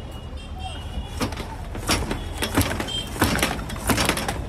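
Water hose being worked in and out of a blocked drain opening, with irregular sharp splashes and knocks of water and hose over a steady low hum.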